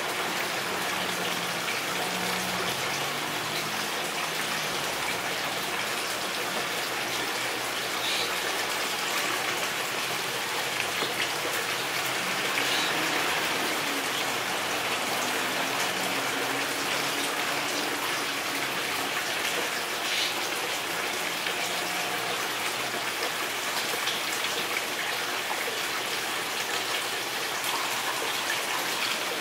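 A steady, even hiss, like rain or running water, with no distinct events.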